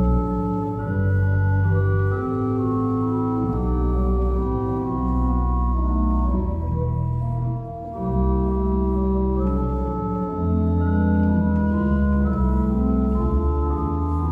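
Church pipe organ playing a slow piece in long sustained chords over deep held bass notes. There is a brief pause between phrases about eight seconds in.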